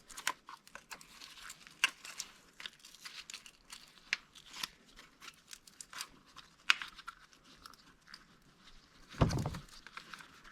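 Plastic electrical connectors being pushed onto fuel injectors and the wiring harness handled by hand: scattered small clicks and crinkly plastic rustling, with one heavier dull knock about nine seconds in.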